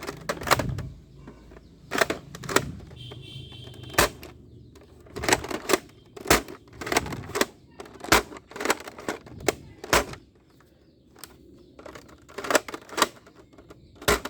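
Irregular sharp plastic clicks and knocks from a large toy Nerf-style gun being handled, with a quieter pause a little past two-thirds of the way through.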